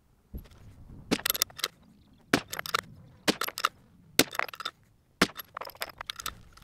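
Sharp metallic clicks and clinks in small clusters about a second apart: a bolt-action rifle being worked and cartridges rattling in a plastic ammo box during reloading. No gunshot.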